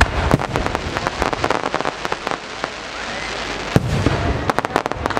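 Aerial fireworks display: shells bursting in a continuous run of sharp bangs and crackling, with a quick volley of reports near the end.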